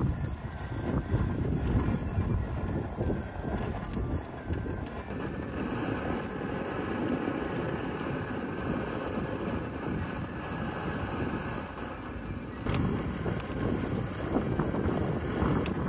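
Handheld butane blowtorch flame hissing steadily as it is held to charcoal in a chimney starter, under heavy wind noise on the microphone. A few sharp clicks sound now and then.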